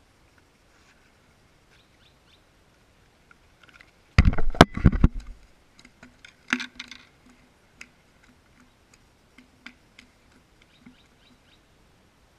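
A freshly landed fish flopping and slapping on concrete pavement. A loud flurry of slaps comes about four seconds in, then scattered lighter flops and taps.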